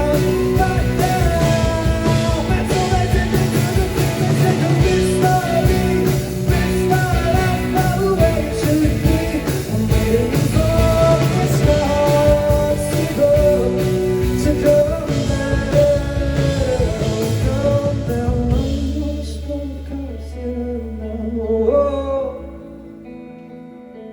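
Live rock band playing with a singer, full band with drums and guitar. About two-thirds of the way through, the drums drop out, leaving a held low note under sparser guitar and voice, and the music gets quieter near the end.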